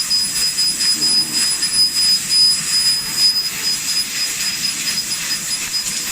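Fiber laser cutting machine at work: a loud, steady hiss with a thin, high, steady whine over it.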